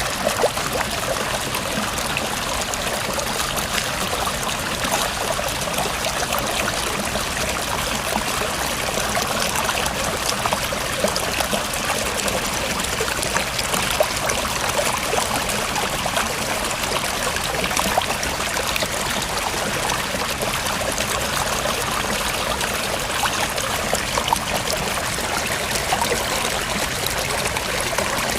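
River water flowing steadily, with a constant rush of small splashes and trickles.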